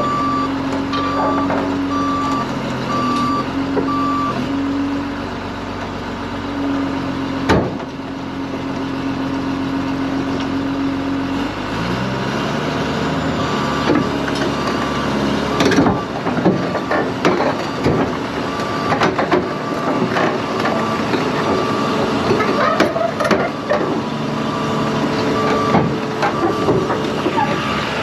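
Heavy diesel machine running with its back-up alarm beeping in a repeating pattern. The alarm stops for a while and starts again partway through. The engine revs up about twelve seconds in, followed by repeated clanks and rattles of metal, with one sharp knock earlier on.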